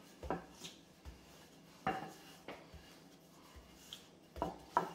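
Wooden rolling pin rolling pizza dough on a granite countertop: light rubbing with a few short wooden knocks and taps on the stone, the clearest about two seconds in and two close together near the end.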